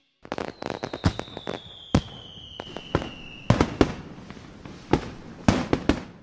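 Fireworks going off: a series of sharp bangs, the loudest coming in the second half. Under the first bangs a high whistle slides slowly downward in pitch for about three seconds.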